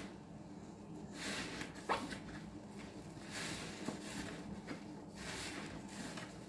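Soap-soaked sponge squeezed and kneaded by hand in dish-soap foam: wet squelching of suds in three swells, with a sharp click about two seconds in.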